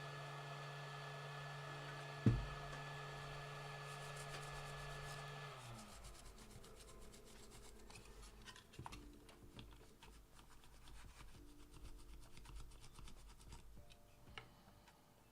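A small machine hums steadily and winds down about five seconds in, with a single sharp click a little before that; then come light, irregular scraping or rubbing strokes.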